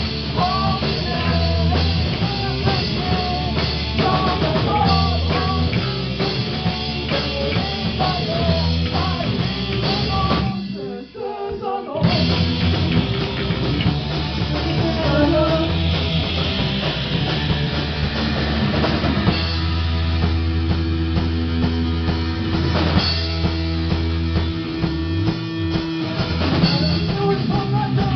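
Live rock band playing through amplifiers: electric guitars and a drum kit. The band drops out briefly about eleven seconds in, then comes back in at full volume.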